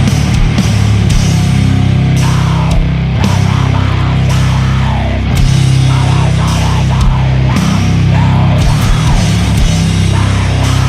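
Sludge metal: heavily distorted electric guitars holding low, thick chords over slow, heavy drum hits.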